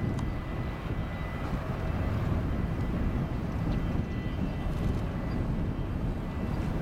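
Boeing 737-800's CFM56-7B jet engines running at low power as the airliner rolls slowly after landing: a steady low rumble with a faint, steady high whine.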